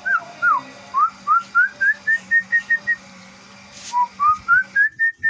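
Lovebird giving an unusual whistled call: a quick series of clear, rising whistle notes, about three or four a second, stepping up in pitch and then holding level. The series stops about 3 s in, and a second one begins about a second later.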